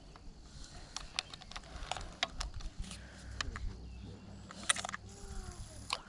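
Scattered sharp clicks and ticks over a steady low rumble, with a brief curved call about five seconds in.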